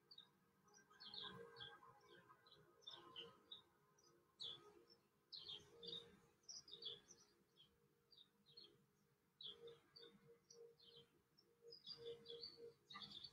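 Near silence with faint bird chirping: short, high calls come every half second or so throughout.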